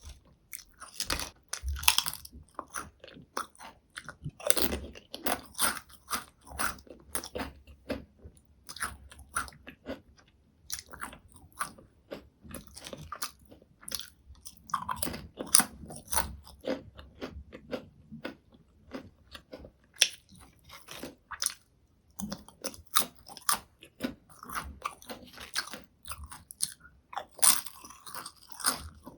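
Close-miked potato chips being bitten and chewed: sharp, dense crunching with many crisp snaps throughout, in louder clusters at each new bite.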